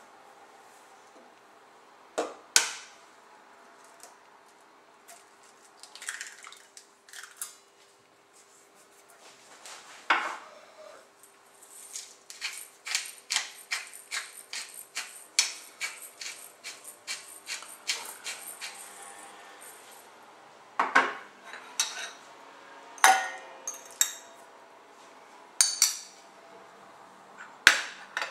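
Clinks and knocks of ingredients and utensils against a stainless steel jug, several sharp ones scattered through. In the middle, a pepper mill grinds for several seconds with a run of quick, even clicks, about three or four a second.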